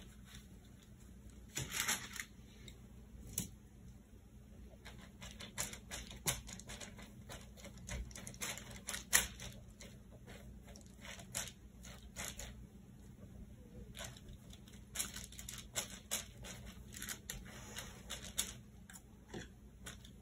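Irregular crinkling and scraping of paper towel and the plastic sheet under it as hands press the towel down and a paintbrush works glue over it, in short rustles that come in clusters, with a longer rustle about two seconds in.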